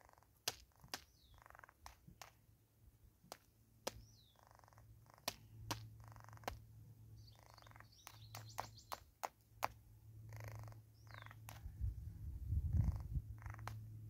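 Crested barbet pecking at seed on a wooden tree stump: sharp, irregular taps of its bill on the wood. Short high bird chirps come every few seconds, and a low rumble comes near the end.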